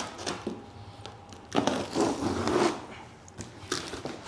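Cardboard boxes being handled and pulled open: scraping, rustling and tearing of cardboard and packing tape, loudest about a second and a half in.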